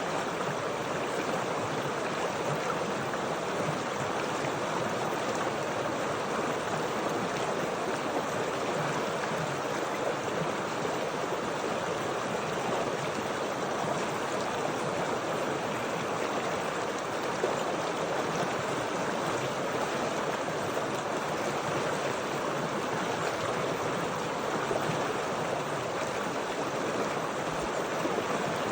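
Flowing stream water running steadily, an even rush with no breaks or changes.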